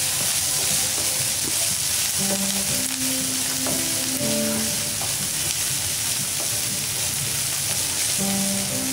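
Chopped onions, peanuts, cashews and curry leaves sizzling steadily in hot oil in a nonstick pan, stirred with a wooden spatula.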